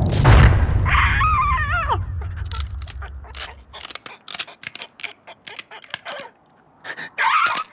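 Cartoon sound effects: a thud over a low rumble, then the cartoon ostrich's wavering cry falling in pitch. A quick, irregular string of clicks and taps follows, and another short squawk comes near the end.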